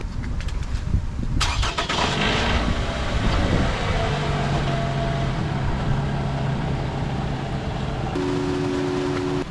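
2014 Toyota RAV4's four-cylinder engine cranked over by the starter, catching about a second and a half in with a brief rev that falls away, then settling to a steady idle. A steady two-note tone joins near the end.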